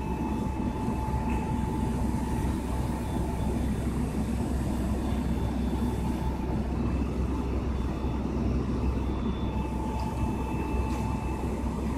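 Engines of parked fire trucks idling: a steady low rumble, with a faint high whine that fades out and returns near the end.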